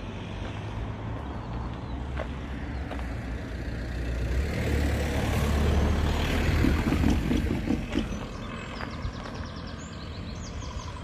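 A road vehicle passing close by: engine and tyre noise builds over a few seconds, is loudest in the middle, and then fades away.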